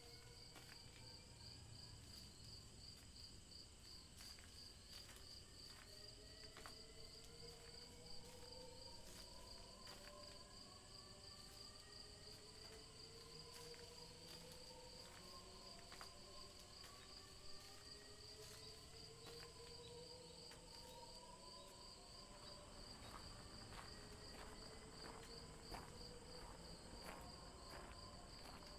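Faint night-time ambience from a horror sound-effects bed: a continuous cricket trill, with slow rising eerie tones overlapping one another and scattered faint clicks.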